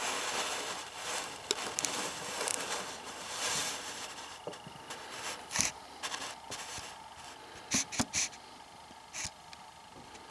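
Handling noise: rubbing and scraping, with a few sharp light knocks in the second half, three of them close together.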